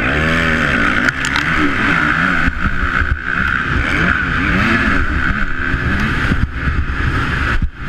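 Motocross bike engine under hard riding on a dirt track, its pitch rising and falling over and over with the throttle. The throttle briefly shuts off near the end.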